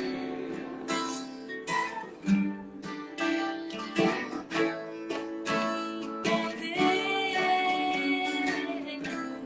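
Acoustic guitar strummed and picked through the close of a slow worship song, with a voice singing along at times, holding one note near the end.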